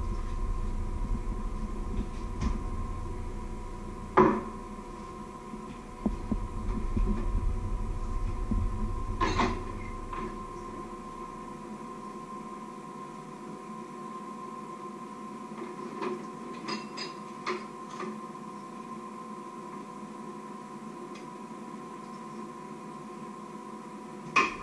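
Kitchen work sounds: a handful of sharp knocks and clicks of things being handled and set down, over a steady high electrical hum. A low rumble runs under the first ten seconds or so and then dies away.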